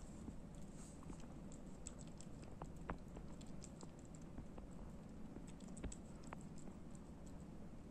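Cat eating dry kibble from a ceramic bowl: faint, irregular crunching clicks as the pieces are bitten and nudged around the bowl.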